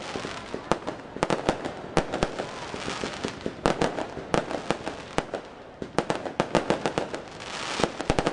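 Aerial fireworks bursting: a fast, uneven string of sharp bangs, often several a second in clusters, with a swell of hissing near the end.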